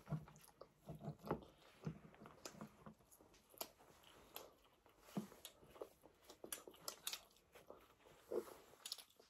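Quiet eating sounds: chewing, with scattered small clicks and rustles as chapati is torn by hand from plates.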